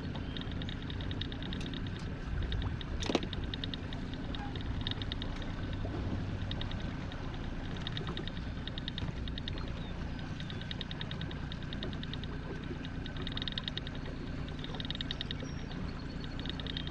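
Outboard motor running steadily at slow trolling speed, a low even drone. A fast, high ticking comes and goes over it, and a single sharp knock sounds about three seconds in.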